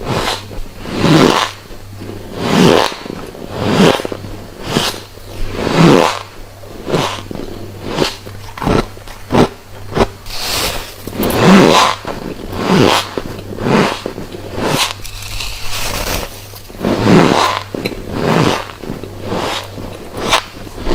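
Refrozen white freezer frost being bitten, a crisp, squeaky crunch with each bite, one bite after another about once a second.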